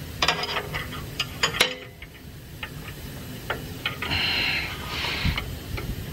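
Metal spanners clicking and clinking against the ball-joint nut and suspension parts as the nut is tightened, with irregular sharp clicks and two short rasping scrapes about four and five seconds in.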